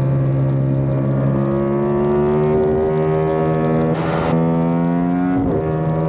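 Yamaha YZF-R7's parallel-twin engine running hard under load, heard from a camera mounted on the bike, its note slowly rising. The note breaks and steps to a new pitch about two and a half and again about five and a half seconds in, at gear changes, with a brief rush of noise about four seconds in.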